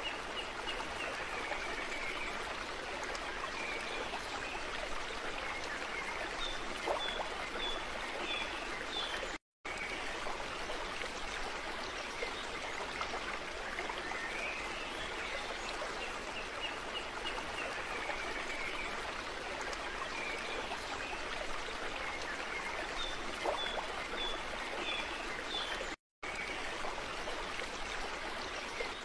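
Flowing stream ambience, an even rushing of water with faint high chirps now and then. It seems to be a loop: it cuts out briefly twice and repeats itself about every sixteen seconds.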